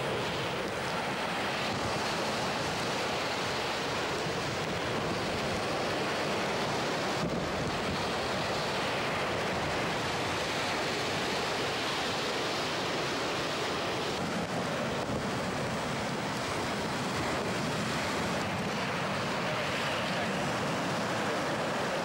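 Rough surf, whipped up by a typhoon, breaking and washing up a sandy beach, with gusty wind buffeting the microphone.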